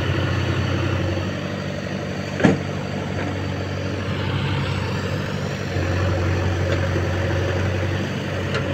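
A tractor's diesel engine runs steadily under load as it hauls a loaded trolley up a slope, and gets louder from about six seconds in. A single sharp knock comes about two and a half seconds in.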